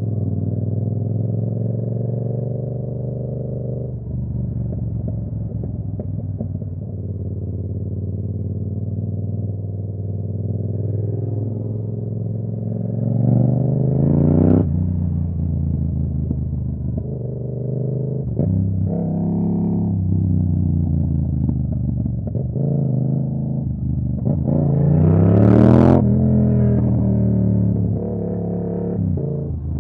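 Yamaha R7's 689 cc parallel-twin engine, fitted with a KO Lightning exhaust, running at steady road speed. About halfway through and again near the end the revs climb to a rising whine, then drop sharply at a gear change. There are brief throttle cuts in between.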